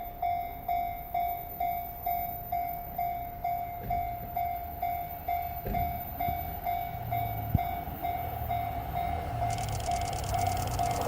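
Japanese level-crossing alarm ringing a steady ding about twice a second. Under it, the rumble of an approaching E235-1000 series electric train grows over the second half, with a rushing sound from about nine and a half seconds in as it nears the crossing.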